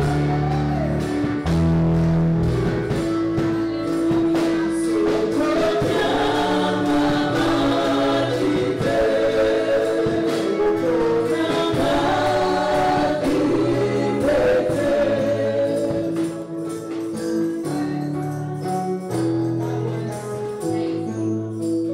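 Gospel music with group singing over a steady beat; the bass drops out about two-thirds of the way through, leaving lighter accompaniment.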